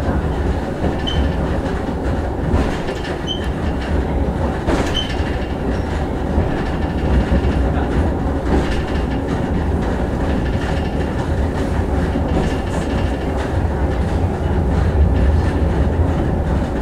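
Sakamoto Cable funicular car running on its track, heard from inside the car: a steady rumble of the ride, with a few clicks and several brief high squeaks.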